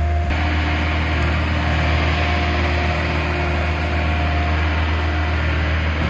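John Deere 317 skid steer's diesel engine running steadily under load, a constant low hum with a noisier spread that fills in just after the start.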